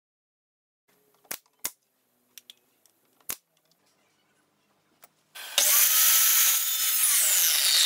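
Pneumatic nail gun firing: two sharp shots in quick succession, then a third a couple of seconds later. About five seconds in, an electric mitre saw starts and runs loud, cutting a strip of white-painted wood moulding.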